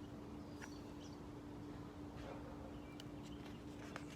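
Quiet room tone: a steady faint hum with a few faint scattered clicks.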